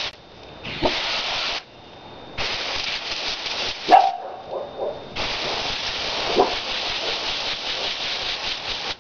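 Garden hose spray nozzle hissing in three spells as it washes down a nitro RC truck, the last spell long and steady. A dog barks a few times, once loudly about four seconds in.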